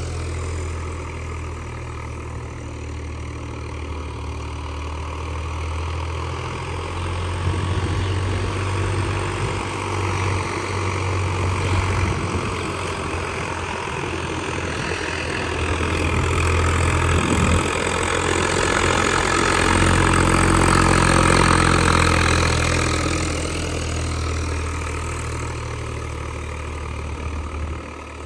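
Swaraj 744 FE tractor's diesel engine running steadily, getting louder for several seconds past the middle before easing back.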